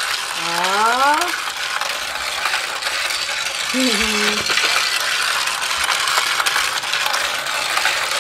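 Battery-operated toy train running along a plastic track: a steady mechanical rattle of its small motor and plastic wheels on the track.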